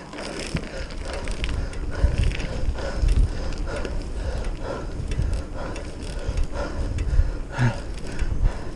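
1950s Hercules path racer bicycle being ridden: irregular clicks and rattles from the chain and frame over a low rumble of tyres and wind.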